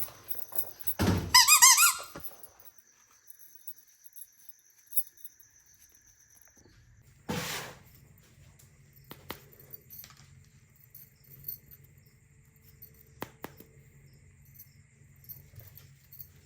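A run of quick, loud squeaks lasting about a second, near the start; then mostly quiet, with a single sharp click about midway and a faint low hum after it.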